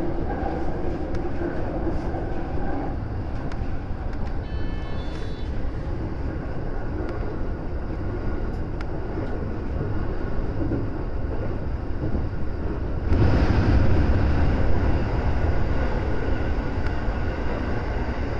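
JR West 223 series electric train running on the line, heard from the front cab, with a brief high tone about five seconds in. About 13 seconds in it enters a tunnel and the running noise gets louder and fuller.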